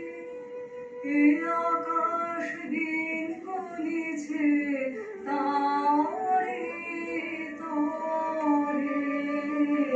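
A woman singing a slow song at a microphone, holding long notes that glide from one pitch to the next, played through a television speaker.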